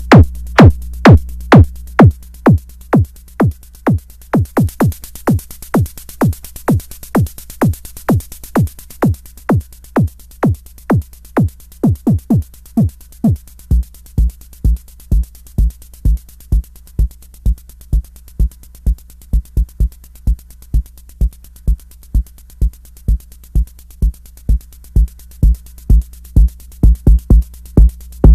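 DIY KIK01 sine-plus-noise synth kick drum module firing repeated kicks about twice a second, with a few quick doubled hits; each hit drops fast in pitch into a low sine boom. About halfway through the kicks become deeper and longer-ringing, and a faint low hum sits between the hits early on.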